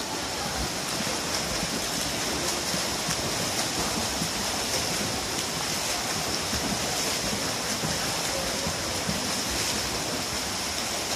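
Water splashing and churning steadily from a swimmer sprinting front crawl, the hard flutter kick and arm strokes beating the surface.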